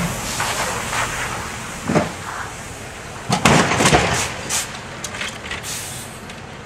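A silver SUV sliding out of control on a snow-covered road, with a cluster of loud knocks and thumps about three and a half to four and a half seconds in as it runs into the curb.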